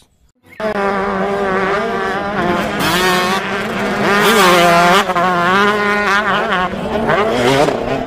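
Motocross dirt bike engine running hard, its pitch climbing and dropping repeatedly as the throttle is worked and the gears change. It starts just under a second in.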